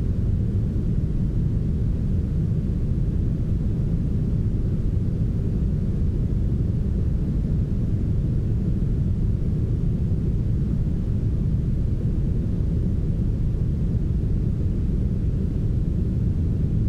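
Steady, smoothed brown noise: a deep, even hiss with no highs, unchanging throughout.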